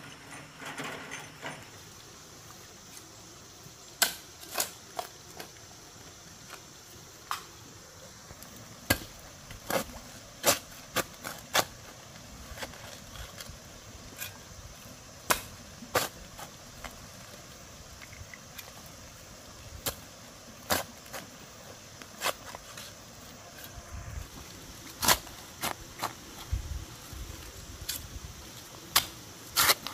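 Cobblestones clacking against each other as they are handled and set, in irregular sharp knocks, sometimes two in quick succession.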